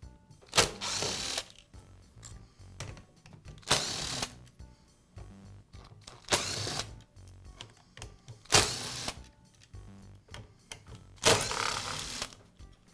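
Cordless drill/driver backing screws out of a miter saw's plastic handle housing in five short runs, each under a second and starting sharply.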